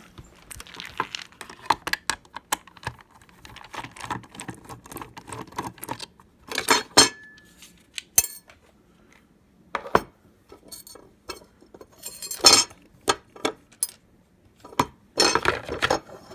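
Small metal lock parts and screws clinking and clattering as they are handled and sorted, with a few louder rattling bursts and one short high tone about seven seconds in.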